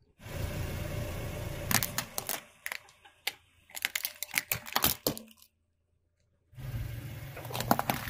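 Car tyre rolling slowly over asphalt with a low rumble, crushing small plastic toy cars in a run of sharp cracks and snaps. The sound cuts out for about a second, then the rumble and crackling come back near the end.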